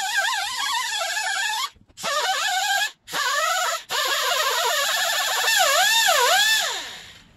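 Handheld rotary tool with a small abrasive wheel grinding metal: a high motor whine that wavers in pitch as the wheel is pressed and eased off, over a gritty hiss. It stops briefly three times, then swings sharply in pitch and winds down at the end.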